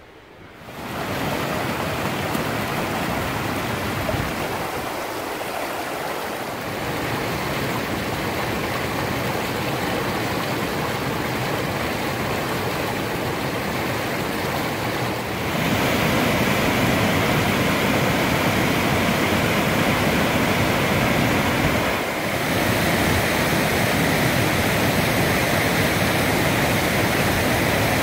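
Rushing stream water tumbling over rocks in shallow rapids, a steady even rush that gets louder about halfway through.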